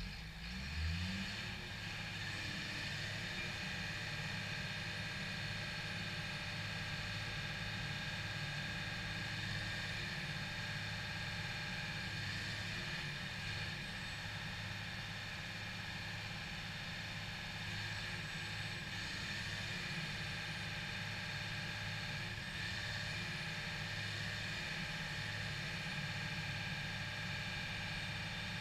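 Caterpillar PL61 pipelayer's diesel engine revving up about a second in, then running steadily at raised speed while the boom is lowered and raised, with a steady high whine over the engine.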